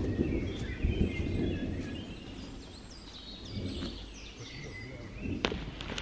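Songbirds chirping in a forest, with the low rustle of footsteps on the forest floor during the first two seconds and a single sharp click near the end.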